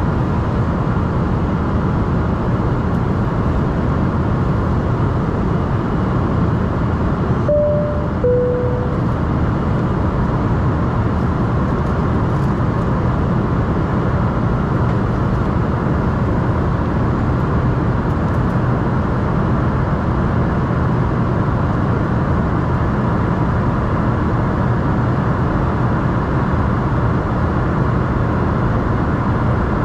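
Steady cabin noise inside an Embraer ERJ-145 regional jet, the hum and rush of its rear-mounted Rolls-Royce AE 3007 turbofans and airflow. About seven and a half seconds in, a two-tone cabin chime sounds once, a higher note falling to a lower one.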